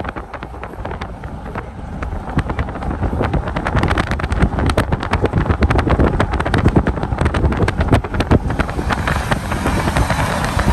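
Road rumble and wind buffeting on the microphone from a moving car, with a dense, irregular crackle through the middle.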